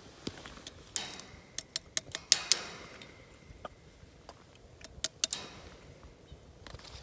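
Metal feeding tongs clicking and clacking as they snap shut and knock against the wire fence while meat is handed to bobcats. Sharp clicks come in a flurry from about one to two and a half seconds in and again around five seconds, a few of them with short hissy bursts.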